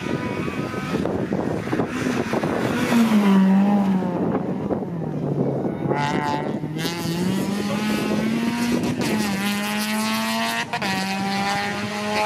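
Rally car engine running hard at high revs, its pitch climbing and falling again several times, with a brief drop in level near the end.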